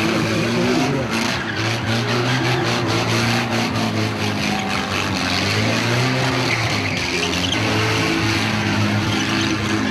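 A car spinning donuts: the engine revving, its pitch rising and falling, over the continuous squeal and scrub of spinning tyres on tarmac.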